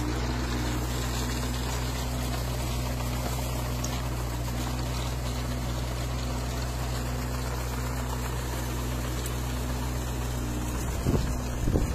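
Tractor engine running with a boom-mounted hydraulic olive tree shaker: a steady low hum with several fixed tones. Near the end, gusts of wind buffet the microphone.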